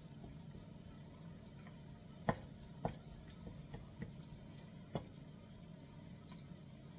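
Quiet kitchen sound of gizzards boiling in a pot: a low steady background with a few sharp clicks or taps, the loudest about two seconds in. A short high tone sounds near the end.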